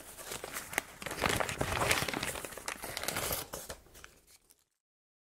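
Paper takeout packaging crinkling and rustling as the fast-food order is handled, a dense crackle of small clicks that cuts off abruptly to dead silence about four and a half seconds in.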